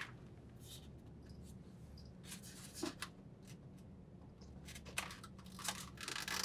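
Faint handling of a plastic wire-harness connector and the plastic duct assembly inside a refrigerator: soft rustles and a few light clicks as the plug is worked together by hand.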